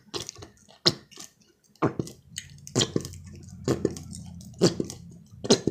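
Close-miked chewing of salad: irregular wet smacks and crunchy clicks, several a second apart, with a low hum underneath from about two seconds in.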